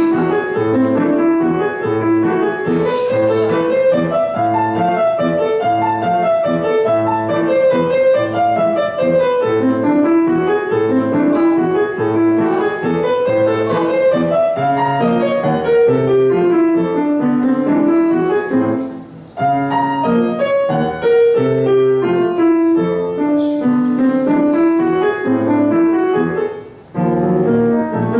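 Kawai grand piano played fast, with quick running notes under a melody that rises and falls. The playing breaks off briefly twice, about two-thirds of the way in and again near the end.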